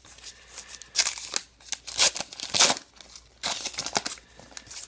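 Foil-lined trading card pack wrapper being torn open by hand: crinkling and ripping in several short bursts.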